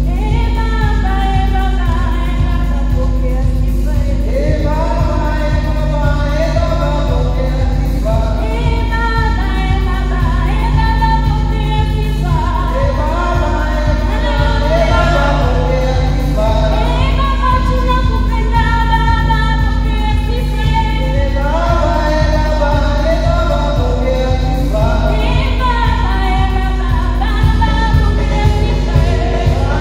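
Worship song in a church service: voices singing a melody over a band with a steady beat.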